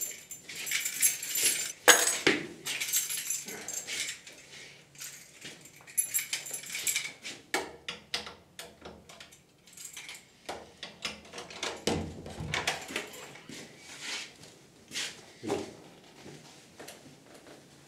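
A bunch of keys jangling and clicking against a door lock as someone fumbles to unlock a door, with knocks and bumps against the wooden door and a low thump about twelve seconds in.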